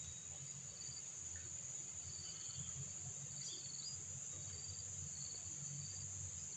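Steady high-pitched chorus of tropical insects, with short chirps repeating roughly once a second over a faint low rumble.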